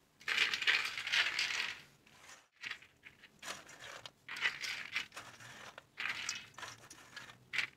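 Soaked, drained mung beans being scattered and spread by hand over a stainless steel plate: several short spells of rustling, with light clicks as the beans drop and slide on the metal.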